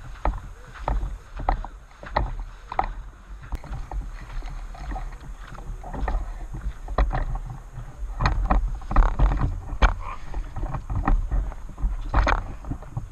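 Irregular rustling and crackling, like brush or gear being disturbed at close range, over a low wind rumble on the microphone. The crackles come thicker in the second half.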